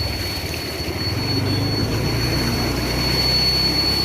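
A motor vehicle's engine running with a steady low hum under wind and road noise, with a thin steady high whine above it.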